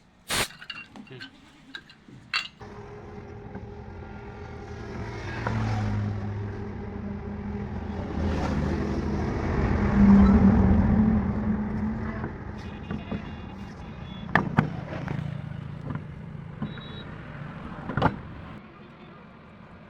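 A motor vehicle's engine approaching and passing, growing louder to a peak about halfway through and then fading. A few sharp clicks come just before it, and two sharp knocks come as it fades.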